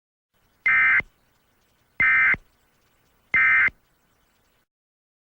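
Emergency Alert System end-of-message data bursts: three short, identical buzzing bursts of digital SAME tones, evenly spaced, signalling the end of the alert.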